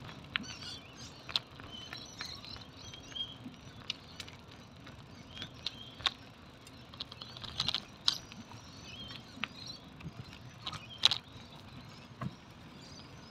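Bicycle rolling along a paved path: a low steady rumble with scattered sharp clicks and rattles, the two loudest about three seconds apart in the second half. Faint bird chirps can be heard.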